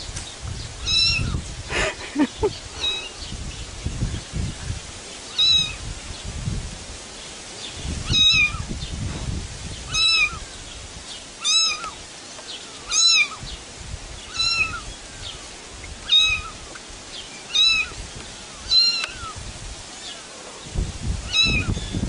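A kitten mewing over and over: about a dozen short, high-pitched mews spaced a second or two apart, over a low rumble.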